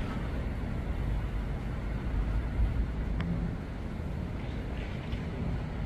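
Steady low rumble of road traffic, with a single sharp click about three seconds in.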